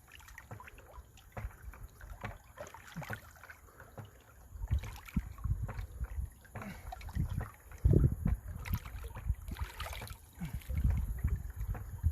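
Water sloshing and splashing at the water's edge, mixed with gusts of wind and low handling knocks on the microphone, as a large alligator gar is released, with irregular low rumbles that swell about two-thirds of the way in and again near the end.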